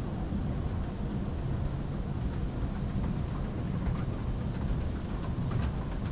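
Escalator running, a steady low rumble, with faint light clicks in the later seconds.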